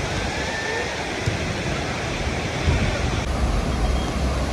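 Steady rushing of waves breaking on a sandy beach, with a low wind rumble on the microphone.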